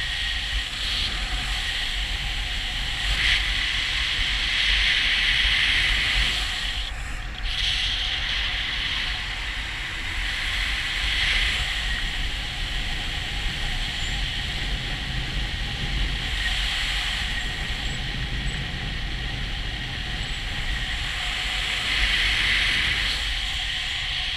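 Wind rushing over the camera microphone in gliding paramotor flight with the engine switched off, swelling louder every few seconds.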